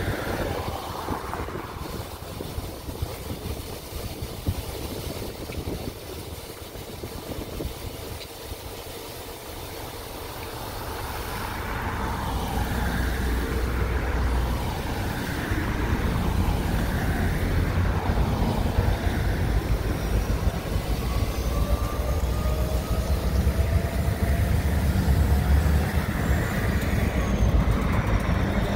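Road vehicles passing on a highway over the steady running of an EMD SD40 diesel locomotive's engine. The low rumble grows louder in the second half.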